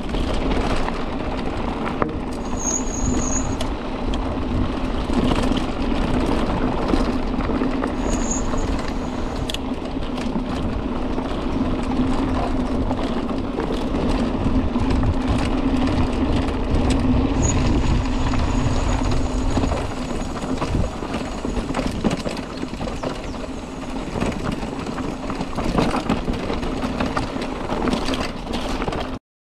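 Mountain bike descending a rocky dirt track: a steady rumble and rush of tyres on dirt and gravel, with frequent rattling knocks as the bike goes over bumps. It cuts off suddenly near the end.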